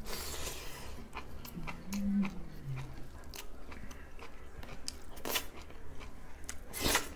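A person chewing mouthfuls of rice eaten by hand, close to the microphone: scattered wet clicks and smacks of the mouth. A short low hum that falls in pitch comes about two seconds in, and two louder smacks come in the last couple of seconds.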